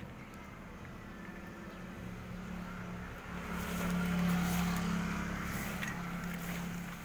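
A motor vehicle passing by: a steady engine hum with road hiss grows louder to a peak about four seconds in, then fades away.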